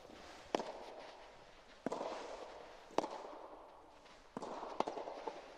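Soft tennis rally: the soft rubber ball popping off rackets and bouncing on the court, five sharp knocks about a second apart, each echoing through the roofed hall.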